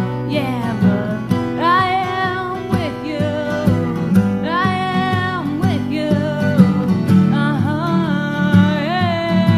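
Slow song: a voice singing long held notes in phrases of about a second each, over strummed acoustic guitar.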